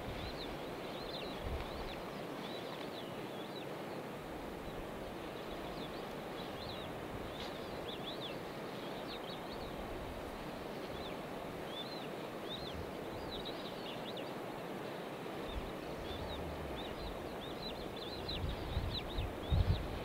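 Many thin, high bird chirps, a few a second, over steady outdoor background noise, with a low rumble coming in near the end.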